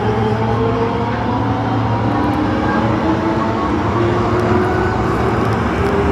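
Osaka Metro Tanimachi Line 22 series subway car 22618 running, with a shrill running sound: several tones drift slowly in pitch over a steady low hum and rumble. The uploader calls it an abnormal noise.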